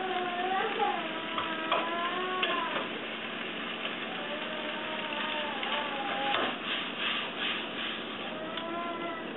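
A slow melody of long gliding notes over the clicks and scrapes of a spatula stirring and tossing stir-fried peppers and beef in a frying pan. There are a few sharp clicks in the first two and a half seconds, and more scraping and clatter from about six seconds in.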